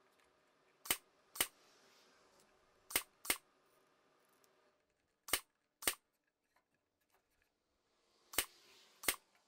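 Ryobi cordless nail gun firing eight times, in four quick pairs, sharp snaps driving nails through the cedar box sides into its bottom slats.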